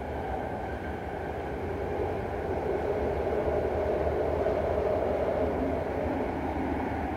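Interior noise of a BART train car in motion: a steady rumble and hiss of wheels on rail, growing a little louder a couple of seconds in.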